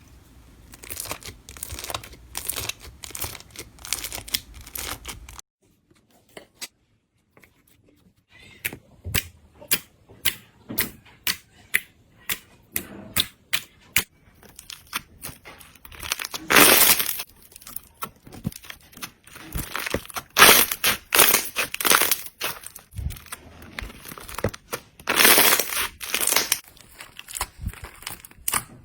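Slime being squeezed and pressed, with dense crackling clicks and sticky pops and a few louder crunchy squelches. The sound briefly stops for about two seconds some five seconds in.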